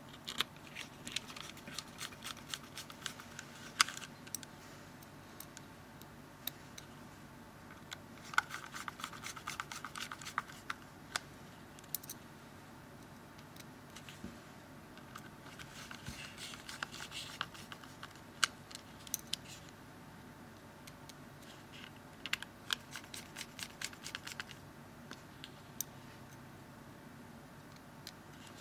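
Small T5 Torx screwdriver turning tiny screws into a phone's plastic casing: spells of fine, rapid clicking and scratching, four of them, with short pauses between.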